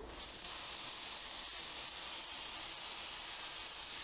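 Homemade airbrush spraying a thin coat of thinned oil-based lacquer, a steady hiss of air and spray.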